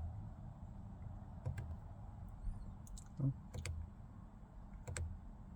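A few sharp plastic clicks a second or so apart: the repaired overdrive on/off button on a 1997 Dodge Dakota's gear selector being pressed.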